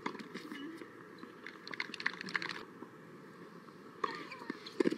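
Tennis ball knocking against rackets and the hard court, a few sharp knocks scattered through, a cluster about two seconds in and the loudest just before the end, over a steady outdoor hiss.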